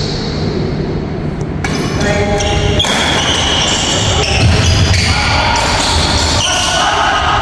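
Badminton doubles rally in a large wooden-floored hall: rackets striking the shuttlecock back and forth, with shoes squeaking and feet thudding on the court.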